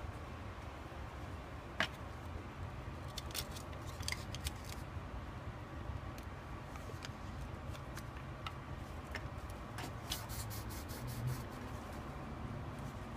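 Aluminium foil crinkling and crackling as gloved hands fold and crimp it around a resin-casting mould, in short spells a few seconds in and again near the end, over a steady low hum.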